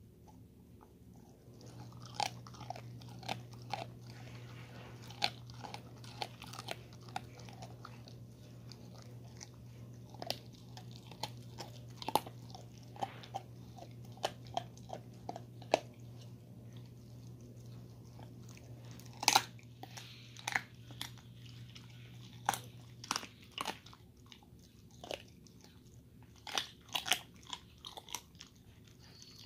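A dog chewing and crunching a chicken foot, with irregular sharp crunches of the small bones and gnawing between them.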